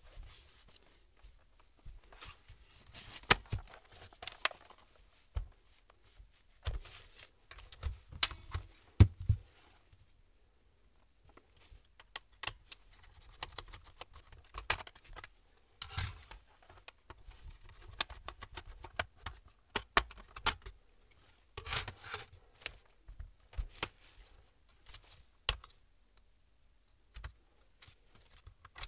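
Scattered clicks, knocks and short scrapes of plastic from handling an HP laptop: it is turned over and its bottom service cover is pried and lifted off. The knocks come irregularly, loudest a few seconds in and again around eight to nine seconds in.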